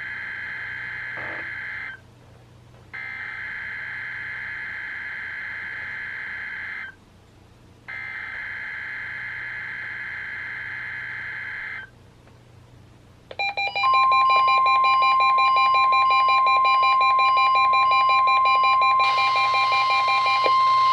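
NOAA Weather Radio SAME header: three bursts of buzzy digital data tones through the weather radios' speakers, about a second apart. About 13 seconds in, a steady alert tone near 1 kHz (the 1050 Hz warning alarm tone) starts together with several weather radios' beeping alarms set off by the header, and more alarms join near the end, making it louder.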